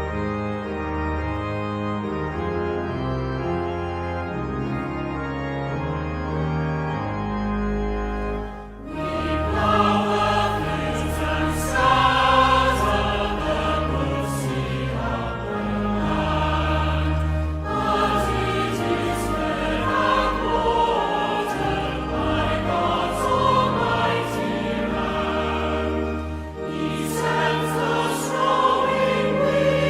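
Church pipe organ playing sustained chords alone for about nine seconds, then voices joining in to sing a hymn over the organ.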